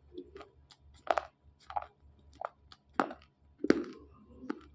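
Dry slate pencils crunching between the teeth as they are chewed: about six sharp crunches, spaced roughly half a second to a second apart.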